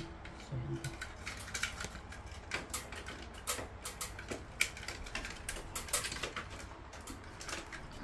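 Irregular light clicks and taps of plastic and wire connectors as the control board housing and its wiring are fitted back into a split air conditioner's indoor unit.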